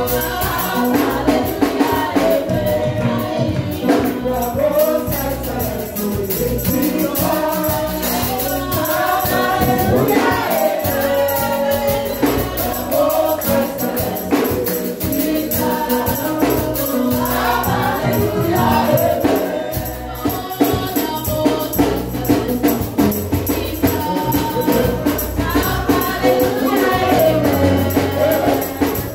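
Gospel praise music: a choir singing over a steady bass beat, with tambourine rattling along.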